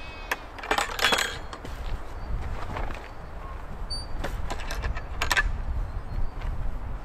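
Metal latch and fittings of a wooden field gate clinking and knocking as a hiker opens it and passes through, with a cluster of knocks about a second in and more a few seconds later. Wind rumbles on the microphone underneath.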